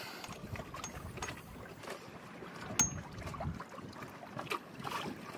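Small clicks, taps and rubbing of hands handling a cable and fitting cable-gland parts into a hole in a teak deck, with one sharper click about three seconds in.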